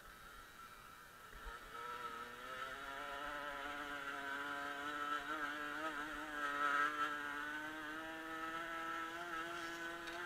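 Small two-stroke moped engine revving up about two seconds in, then running at high, fairly steady revs under way, with a high buzzing note that wavers a little in the middle.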